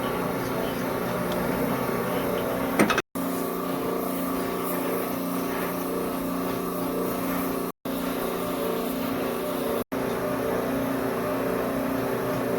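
A machine's motor running with a steady, even hum that breaks off abruptly three times, with one sharp click about three seconds in.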